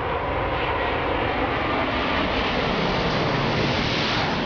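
Airbus A380's four turbofan engines on a low landing approach: a loud, steady jet rush that grows a little brighter and louder toward the end as the aircraft comes overhead.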